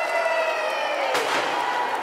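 Crowd cheering and calling out, with one sharp bang a little over a second in.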